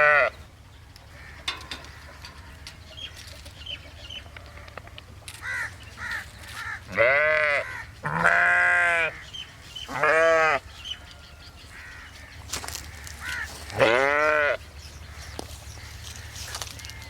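Sheep bleating repeatedly: three short bleats, then several long, loud baas in quick succession, and one more after a pause.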